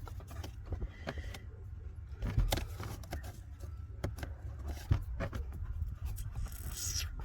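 Hands working a cabin air filter loose from its plastic housing under a car's dashboard: scattered clicks, scraping and rustling of plastic, with two sharper knocks, over a steady low hum.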